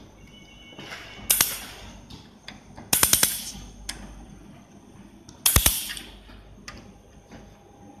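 Handheld fiber laser welder firing pulsed spot welds on a steel sheet edge: three bursts of sharp crackling snaps. The first is a single burst about a second in; the others are quick runs of several pulses, around three seconds in and five and a half seconds in.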